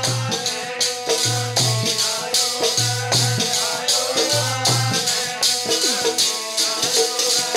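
Instrumental interlude of Sikh kirtan: a harmonium plays the melody over a dholak drum beat, with a chimta jingling in a steady rhythm about three strikes a second.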